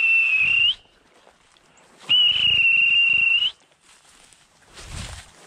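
A dog whistle blown in two long blasts, one ending just under a second in and another from about two seconds to three and a half, each a steady shrill tone that flicks up in pitch at the end: a handler signalling bird dogs in the field.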